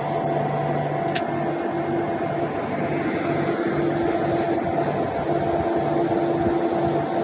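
Fishing vessel's engine and deck machinery running with a steady, loud drone. A brief sharp click comes about a second in.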